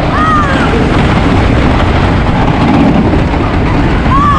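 Loud, steady rush of wind on the microphone and the rumble of a wooden roller coaster ride. Short high shouts from riders come just after the start and again near the end.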